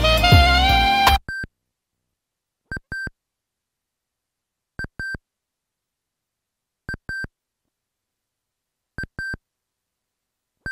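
Music from the tape cuts off about a second in, after which a Sony Walkman WM-EX525's built-in beeper sounds short, high double beeps about every two seconds while the tape fast-forwards.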